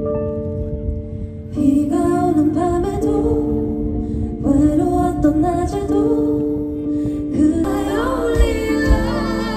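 Live performance of a slow ballad: a woman singing over sustained keyboard chords, amplified through a festival sound system. The voice comes in about a second and a half in, and the accompaniment fills out with more instruments near the end.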